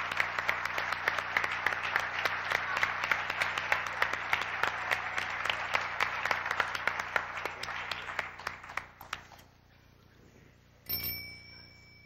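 Audience applauding, dense clapping that dies away about nine seconds in. About a second before the end, a single short bright ringing tone sounds.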